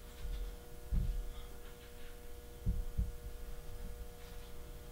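A steady electrical hum with three dull, low thumps: one about a second in and two close together near three seconds.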